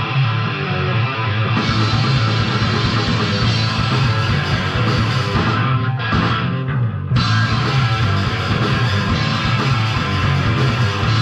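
Punk rock band playing live: distorted electric guitars, bass and drums. About six seconds in, the high end drops away for a second before the full band comes back in.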